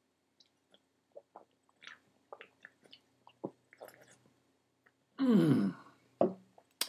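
A man gulping from a glass bottle: a run of small, wet swallowing clicks. About five seconds in comes a loud voiced breath out that falls in pitch, and two sharp clicks follow near the end.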